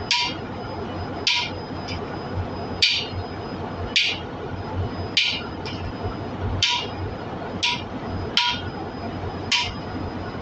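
Hammer blows on a valve-seat driver tool, about nine strikes roughly a second apart, each with a short metallic ring: a new exhaust valve seat being driven into an engine cylinder head.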